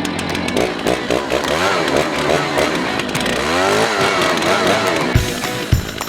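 Chainsaw engine revving up and down repeatedly as it cuts root pieces off a walnut burl stump. A steady thumping music beat comes in near the end.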